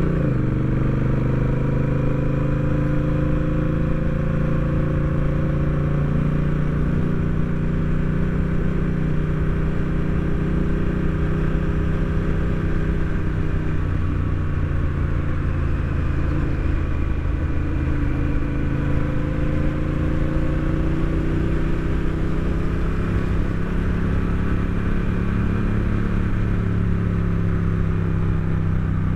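Honda Rebel 1100 DCT's parallel-twin engine running while riding, its pitch dropping just at the start and then falling and rising gently around the middle, over steady low wind and road rumble.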